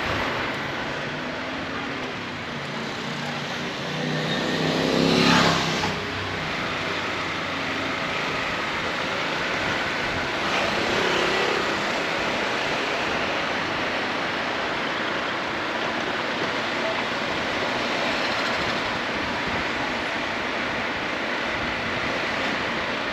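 Steady rush of wind and road noise while riding a Honda ADV 350 scooter, with a brief swell of engine sound about five seconds in that rises and then drops away.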